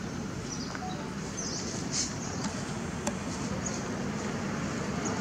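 Steady low outdoor rumble with faint, short, high chirps scattered through it and a couple of light clicks, about two and three seconds in.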